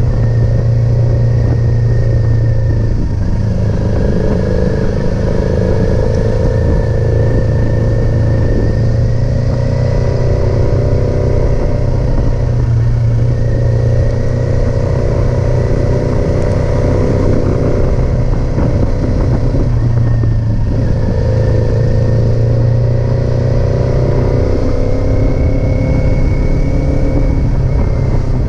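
Kawasaki Z400 motorcycle's parallel-twin engine running loud and steady, its pitch shifting slightly every few seconds.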